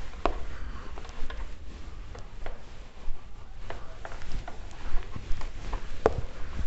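A whiteboard being wiped with a cloth duster: uneven rubbing and scraping strokes with scattered small taps, and a sharper knock about six seconds in.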